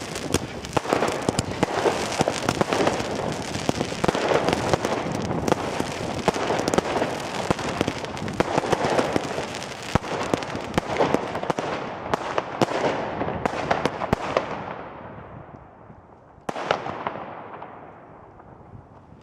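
Fireworks going off in a dense barrage: rapid bangs over continuous crackling. It thins out after about twelve seconds and dies away, with one last sharp bang and a fading crackle near the end.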